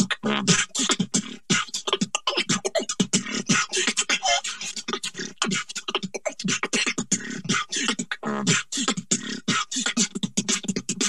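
Beatbox loopstation performance: layered vocal loops of fast beatboxed percussion with pitched vocal bass lines underneath, in a steady, dense rhythm.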